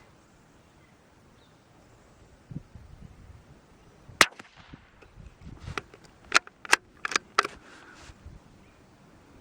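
A single sharp shot from a .22 LR bolt-action rifle about four seconds in. It is followed by a quick series of sharp metallic clicks, the bolt being worked to eject the case and chamber the next round.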